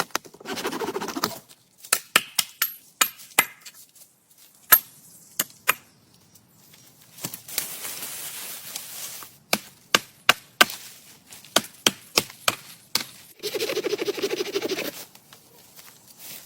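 Wood being chopped with a hand tool: a run of sharp, irregular knocks, with a longer scraping stretch in the middle and grating passages near the start and the end.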